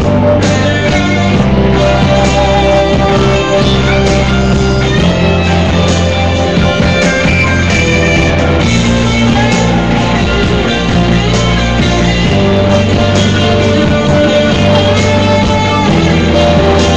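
Loud rock music with guitars and a bass line that changes note every second or two, playing without a break.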